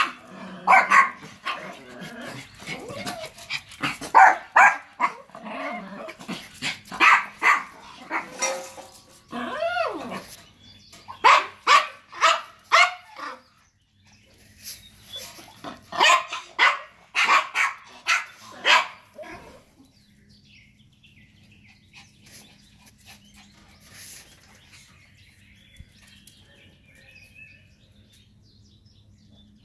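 Several Yorkshire terriers barking in fast bursts of overlapping yaps, loud for about the first twenty seconds, then falling quiet with only faint sounds.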